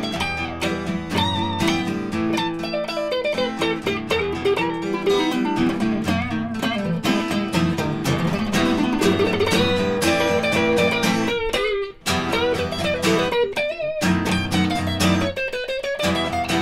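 An acoustic guitar and an electric guitar play an instrumental tune together: a picked melody over strummed chords. The playing breaks off for an instant about twelve seconds in, then carries on.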